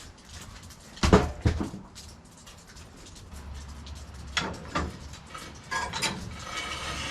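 Several sharp knocks and clanks: two loud ones about a second in, then more around four and a half and six seconds, over a low steady hum that comes in partway through.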